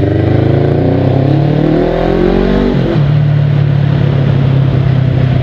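Honda CB 500 parallel-twin engine running through a newly fitted Coyote twin polished aftermarket exhaust while the bike is ridden: the pitch rises as it accelerates, drops suddenly about halfway through, then holds steady at a lower pitch.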